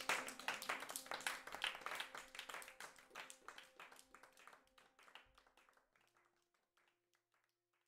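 Applause with a few held musical notes underneath, fading out steadily.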